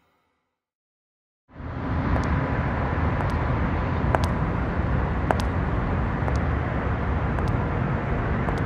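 Silence, then about a second and a half in, a steady outdoor traffic rumble starts, with faint sharp clicks about once a second.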